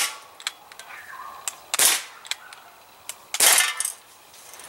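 Crosman C11 CO2 semi-automatic BB pistol fired three times, about a second and a half apart, each shot a sharp pop, with lighter clicks in between.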